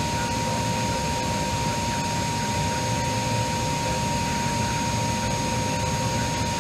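Steady cockpit background noise of a parked Embraer E-Jet with its systems powered: an even hum and rush with a constant high whine, no change through the whole stretch.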